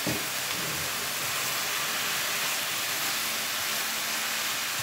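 Sliced beef and onions sizzling steadily in a nonstick wok while a spatula stirs them, the beef's own juices cooking off in the pan.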